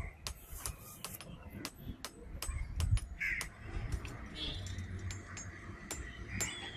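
A crow cawing, once about three seconds in and again near the end, over scattered sharp clicks.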